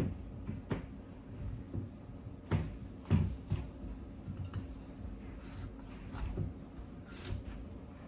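Irregular knocks and taps of a kitchen knife cutting through a hard-skinned butternut squash on a cutting board.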